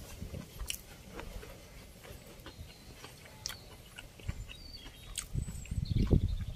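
Close-up chewing of a mouthful of rice and stew, with small wet clicks and smacks from the mouth. The low rumbling grows louder near the end.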